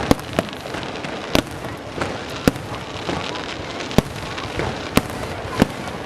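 Fireworks going off: sharp bangs at irregular intervals, about seven in six seconds, over a continuous crackling.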